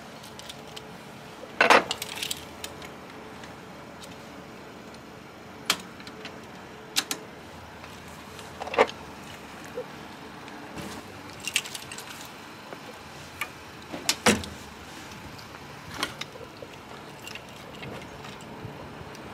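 Scattered metal clicks, clinks and knocks as a caravan coupling lock is unlocked with its key and taken off, and the drawbar is handled. The two loudest knocks come about two seconds in and about fourteen seconds in.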